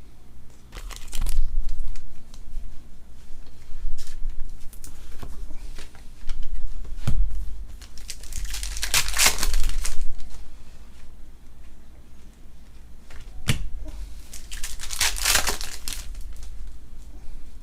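Foil trading-card packs being torn open and their wrappers crinkled, with cards handled between; two longer tearing-and-crinkling passes, about halfway through and near the end, and scattered light clicks and taps.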